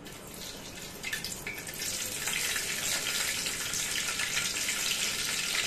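Chopped green chillies and curry leaves sizzling in well-heated cooking oil in a pot, the sizzle growing louder about two seconds in and then running steadily.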